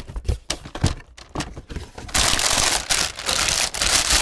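A few scattered taps and knocks as a cardboard lens box is opened and handled, then, from about two seconds in, a clear plastic bag crinkling continuously as it is pulled off the lens pouch.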